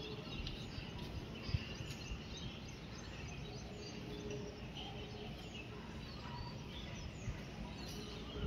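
Open-air background noise with birds chirping faintly now and then.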